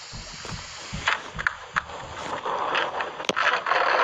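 Water sloshing against a boat hull with wind on the microphone, and several knocks as a dog scrambles with its paws up onto the boat's fiberglass side.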